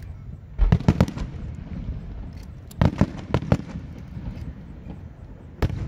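Aerial firework shells bursting: a quick cluster of sharp bangs about half a second in, another cluster around three seconds in, and a single bang near the end.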